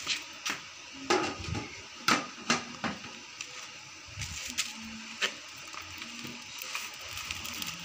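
Firewood crackling and popping in a wood-burning clay stove, with irregular sharp pops, the loudest about one and two seconds in.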